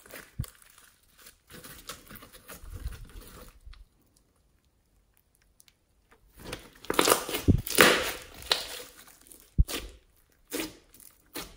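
Glitter slime mixed with floam beads being squeezed, stretched and pressed by hand, crackling and popping. After a quiet gap of about two seconds in the middle comes the loudest crackling as the slime is stretched thin, then a few short sharp pops near the end.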